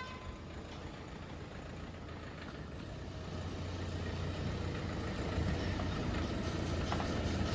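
Hyundai Creta SUV's engine running at low speed as the car pulls slowly out, a steady low hum that grows a little louder about halfway through.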